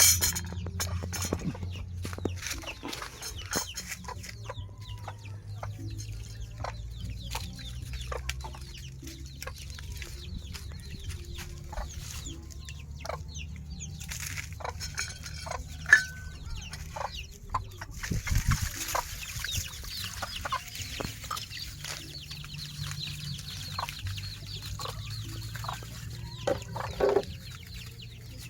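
Chickens clucking, with many small scattered clicks and knocks.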